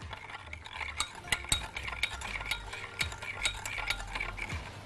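A metal spoon stirring honey into warm water in a glass measuring jug, with repeated light, irregular clinks against the glass as the honey dissolves.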